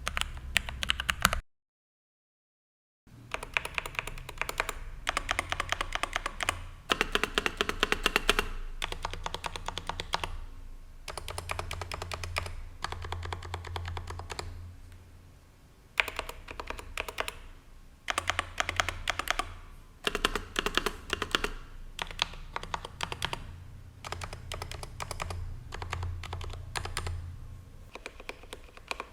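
Leopold FC980M mechanical keyboard being typed on in fast runs of key clacks, several strokes a second with short pauses between runs, demonstrating its stock, unmodified stabilizers. There is a short silence near the start.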